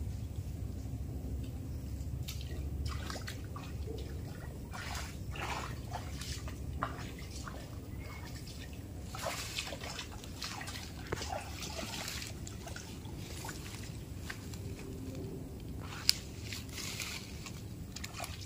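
Shallow muddy stream water sloshing and splashing irregularly as a person wades through it barefoot and feels through it with his hands.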